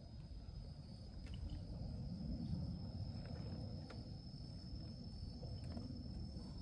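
Insects trilling steadily at one high pitch over a low rumbling noise, with a few faint clicks.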